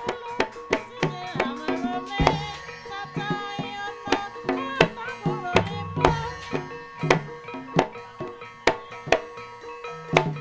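Instrumental Javanese gamelan accompaniment for an ebeg dance: sharp kendang hand-drum strokes in a lively, uneven rhythm over ringing, pitched struck-percussion notes.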